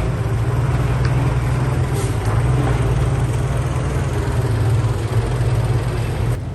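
Heavy diesel engine of a bulldozer running steadily with a deep drone; it drops out for an instant near the end and comes back a little quieter.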